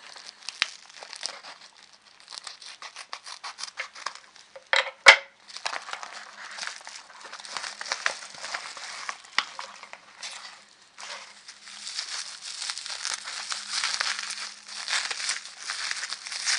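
Parcel packaging being handled and unwrapped: crinkling and rustling with a quick run of crackles, one loud sharp snap or tear about five seconds in, and heavier continuous rustling in the second half.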